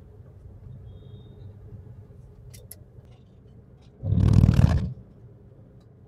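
Car tyres running over painted rumble strips: a loud, rough burst lasting under a second, about four seconds in, over the steady low drone of the moving car heard from inside the cabin.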